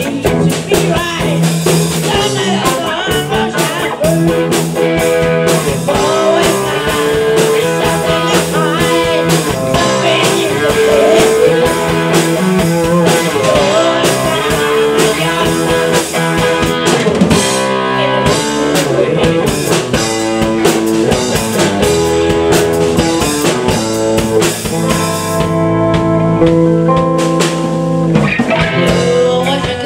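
Live band playing: electric guitars and a drum kit, with a man singing into a microphone.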